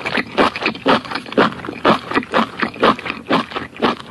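Close-miked chewing: wet, smacking mouth sounds repeating steadily at about four chews a second, as in an ASMR eating recording.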